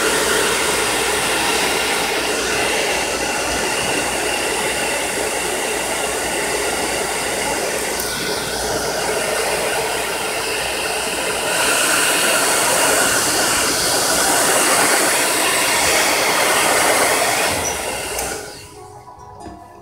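Hair dryer blowing steadily on freshly painted fabric to dry the paint, switched off near the end.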